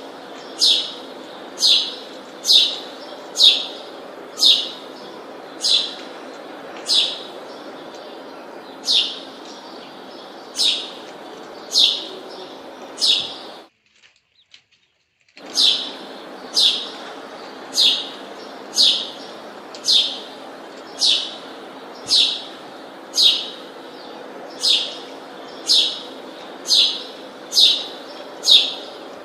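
A bird repeating a short, sharp, high chirp about once a second. The sound cuts out completely for about a second and a half midway.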